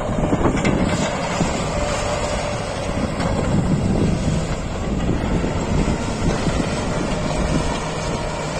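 Steady wind noise on the microphone, heaviest in the low end, with a faint steady tone running through it.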